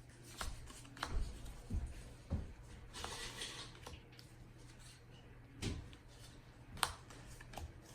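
Scattered soft clicks and taps with a brief rustle, as baseball cards and foil packs are handled on a table, over a steady low hum.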